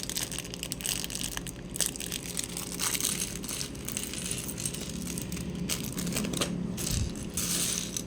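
Plastic LEGO parts bags crinkling and rustling as they are handled, with the small plastic pieces inside clicking and rattling against each other.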